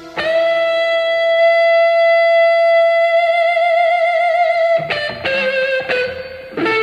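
Background music on electric guitar: one long held note with a slight vibrato for about four and a half seconds, then a few shorter notes bent in pitch.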